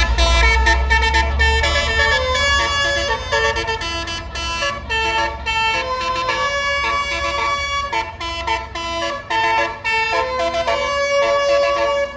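Bus's Basuri musical 'telolet' air horn playing a fast tune of short, stepping notes, over the low rumble of the bus engine, which is heaviest in the first couple of seconds.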